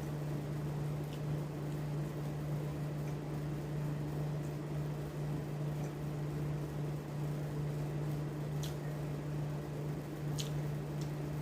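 A steady low hum under faint background noise, with two faint clicks near the end.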